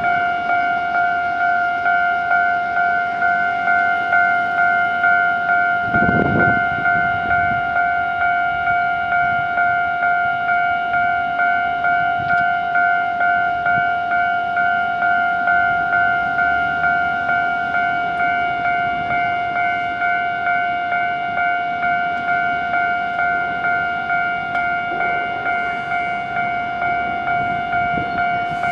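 Electronic warning bell of a Japanese railway level crossing, ringing steadily in a fast, even repeating pattern, the signal that a train is approaching and the barriers are down. A brief low rumble comes about six seconds in.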